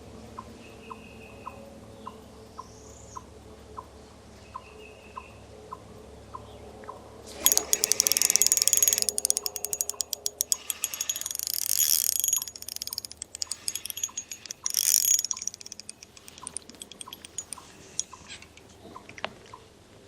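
A slow, even ticking about twice a second, then about seven seconds in a Shimano Soare XR ultralight spinning reel's drag starts clicking rapidly in long runs with short pauses as a fish pulls line, each click distinct and with no surging, from a felt drag washer with drag grease in place of the stock carbon disc. A few faint bird chirps come before the drag starts.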